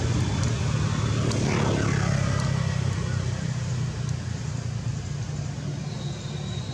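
Steady low engine drone over a broad hiss, easing slightly after about four seconds.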